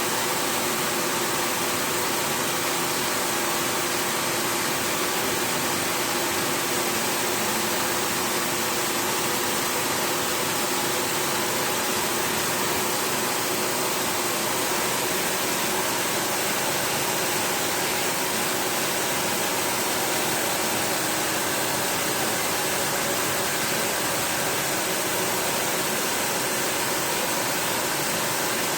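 A steady spray of water, as from a pressure-washer jet, rinsing a commercial floor-standing air conditioner's heat-exchanger fins, with a faint steady hum underneath.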